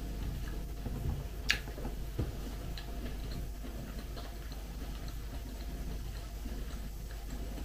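A fork clicking on a dinner plate while eating: one sharp click about one and a half seconds in and a duller knock soon after, then faint light ticks.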